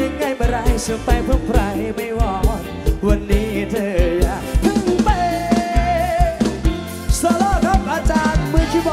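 Band music: a male singer singing a wavering melody into a microphone over a drum kit beating a steady rhythm, loud through a stage sound system.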